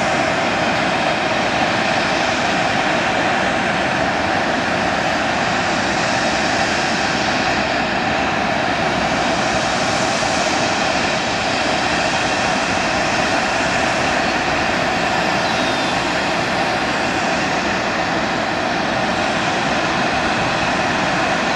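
Cessna Citation X business jet's twin Rolls-Royce AE 3007 turbofan engines heard steadily as it climbs away after takeoff, a constant jet roar with the high hiss slowly swelling and fading.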